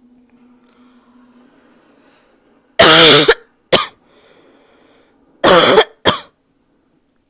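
A woman's barking cough: two fits, each a long cough followed by a short one, about three seconds in and again near the end.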